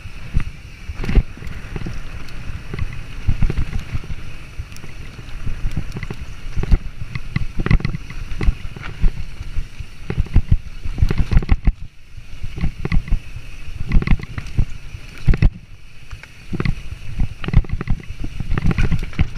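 Mountain bike ridden fast down a rooty dirt trail: the bike clatters and rattles, with frequent sharp knocks as the wheels hit roots and bumps, over a steady rush of wind on the microphone.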